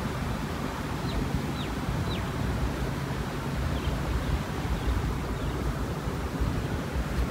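Steady low rumble of wind on the microphone, with a small bird giving three short, high, falling chirps about a second in and a couple of fainter ones later.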